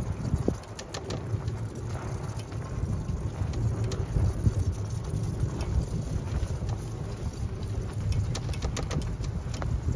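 Vehicle driving slowly along a sandy dirt track: a steady low rumble with scattered crackles and ticks throughout.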